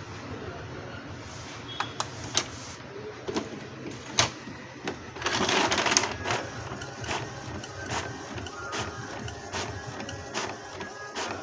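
Epson L-series inkjet printer mechanism running: a string of sharp clicks and ticks from the carriage and feed gears, with a louder rushing burst about five seconds in, then regular clicking with a faint motor whine.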